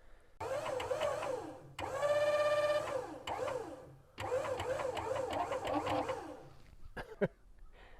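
Wood-Mizer LT-40 band sawmill running, its brand-new bandsaw blade cutting a hickory log. A whine that wavers up and down sits over a steady low drone. It holds a steady pitch for about a second near the two-second mark and cuts out briefly twice.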